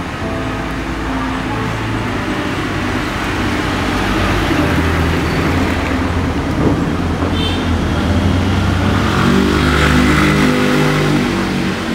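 A vehicle engine running, growing gradually louder and easing off about a second before the end.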